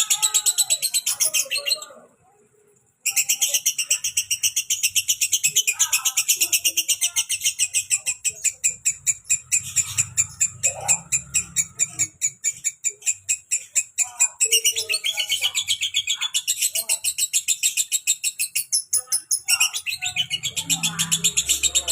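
Female lovebird singing a long, rapid chattering trill of high chirps. It breaks off about two seconds in, then resumes about a second later and goes on without a break.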